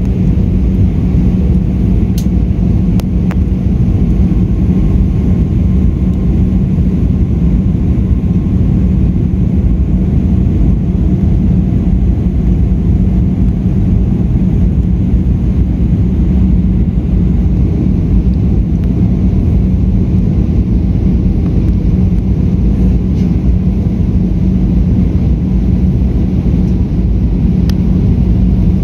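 Airbus A320 cabin noise on the approach to landing: a steady rumble of engines and rushing air with a constant low hum, heard from inside the cabin. A few faint clicks sound near the start and near the end.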